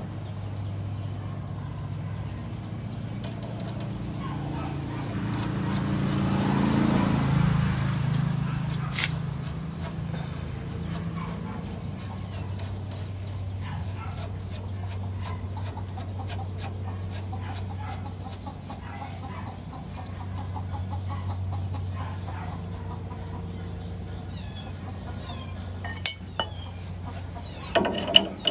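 Hand tools on the nut of a jeep's steering tie rod end: scattered light metal clicks, then a quick run of sharp clicks near the end. Underneath is a steady low hum, and a rustling swell about seven seconds in is the loudest part.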